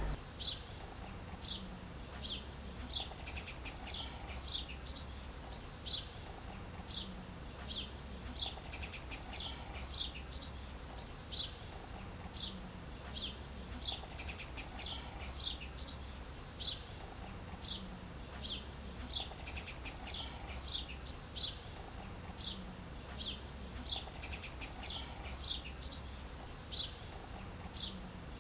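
Small birds chirping, a run of short, falling, high chirps at about one or two a second, over a faint low hum.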